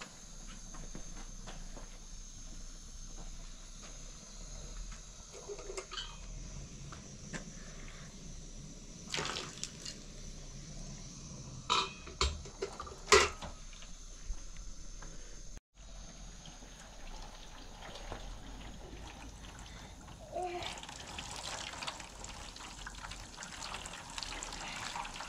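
Water poured from a plastic jug over a child's hair, splashing into a plastic basin as her hair is rinsed, heard mostly over the last five seconds. A few sharp knocks around the middle.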